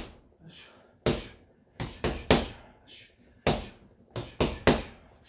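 Punches landing on a Quiet Punch doorway-mounted punching bag: sharp hits in a 1-1-2, slip, 2 rhythm, three quick hits then a pause and a single hit, repeated.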